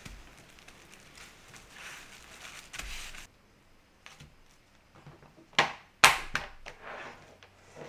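A few sharp knocks and clicks of hard objects being handled and set down. The two loudest come about half a second apart, a little past the middle, with lighter taps around them. A soft hiss at the start cuts off after about three seconds.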